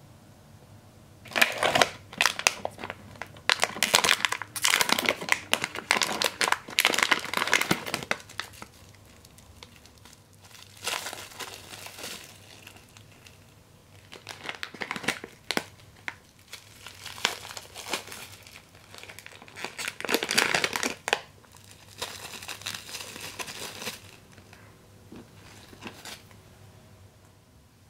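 Plastic wrappers of bath bombs crinkling as they are torn open and handled, in repeated bursts of rustling, busiest in the first eight seconds and then in shorter spells.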